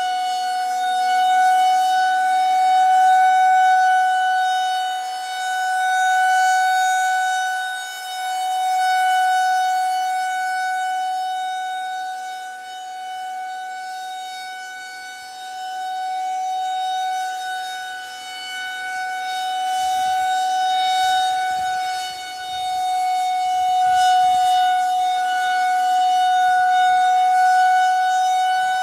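Federal Signal 2001-130 outdoor warning siren sounding a steady alert tone: one held pitch that swells and fades in loudness every few seconds as the rotating horn sweeps round.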